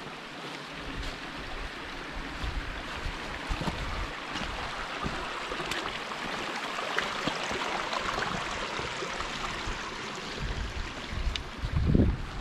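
Running water of a small stream, a steady rushing that swells toward the middle and eases again, with a few dull thumps near the end.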